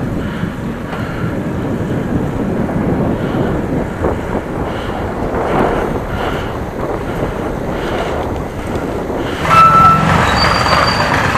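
Steady wind and road rumble from a moving ride, with traffic noise. About nine and a half seconds in, it gets suddenly louder and a brief steady high tone sounds, like a passing vehicle.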